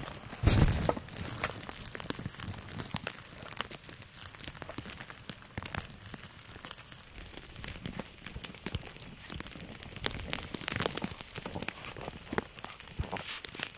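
Wood fire crackling with irregular small pops, and a heavy thump about half a second in.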